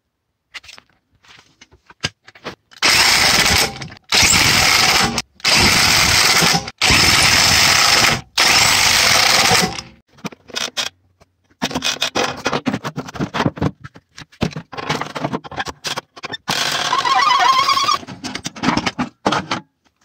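Unitec electric impact wrench (710 W, 300 Nm) running in four loud bursts of about a second each. It is followed by a stretch of irregular clattering of tools and another longer burst near the end.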